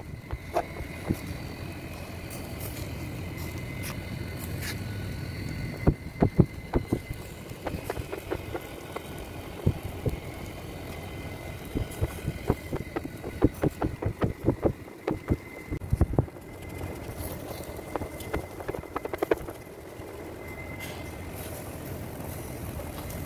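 Steel kebab skewers clicking and clinking in scattered clusters as they are turned over a charcoal grill, over a steady low rumble.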